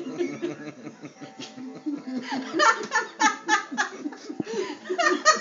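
People laughing, with a burst of loud, rhythmic laughter from about halfway through.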